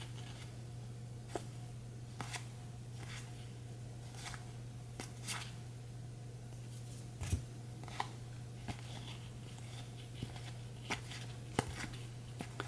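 Baseball cards flipped one at a time from a stack, each card sliding off with a short, quiet flick or snap. A single firmer knock comes about seven seconds in, over a steady low hum.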